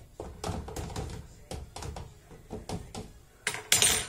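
Fork tines tapping against a frying pan through thin piadina dough as the dough is pricked all over, a few irregular taps a second. A louder scrape comes near the end.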